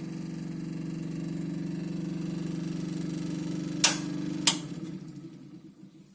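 Electric fireplace's fan heater running with a steady hum. Two sharp switch clicks come about four seconds in, after which the fan winds down and stops.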